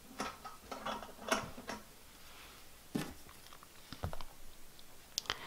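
Light clicks and faint rustling of hands handling a small charm and a metal charm pin. The clicks come in a quick cluster over the first two seconds, then singly a few more times.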